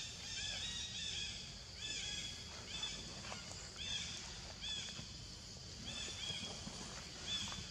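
Animal calls: short, high, arching chirps that repeat about once a second, over a low steady rumble.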